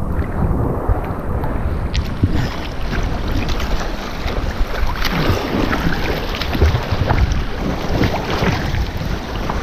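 Seawater sloshing and splashing against a camera bobbing at the waterline, with small waves washing over rocks: a dense crackle of splashes over a low rumble.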